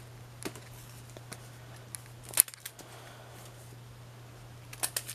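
Comic books in clear plastic bags being handled and moved one over another: scattered crinkles and light taps of the plastic, the sharpest a little over two seconds in and a quick cluster near the end. A steady low hum lies under it.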